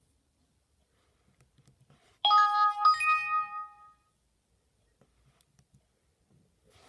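Nokia C2-01 tone played through a Sony Ericsson W595 phone's loudspeaker: a two-note ding-dong chime about two seconds in, a lower note then a higher one, ringing out for about a second.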